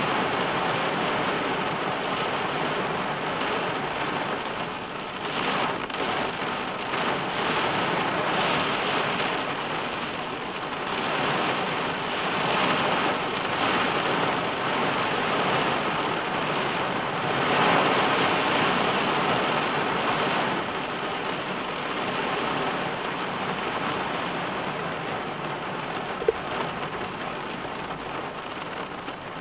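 Heavy rain drumming on a car's roof and windscreen, heard from inside the car: a dense, steady downpour that swells and eases in waves. A single sharp click sounds near the end.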